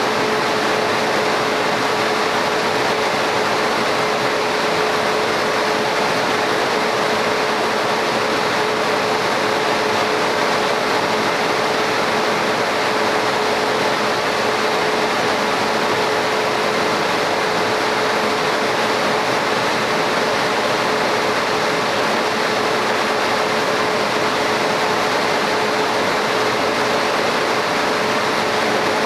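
Laser cutting machine running while it cuts a stone tile: a steady fan-like rush with a constant hum, unchanging throughout.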